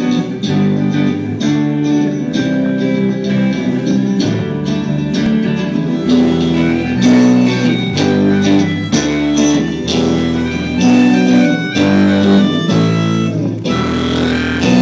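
Live rock band playing through a PA: electric guitars and bass over a drum kit, chords changing every second or so.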